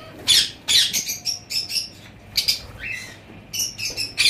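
Lovebirds giving short, shrill squawks in quick succession, each call sliding down in pitch, with a brief lull around the middle.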